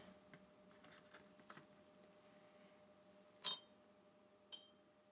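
Two light clinks with a brief high ring, the louder about three and a half seconds in and a second a second later, as a paintbrush is knocked against a glass water jar while being wetted. Faint soft taps and rustles of the brush being picked up come before.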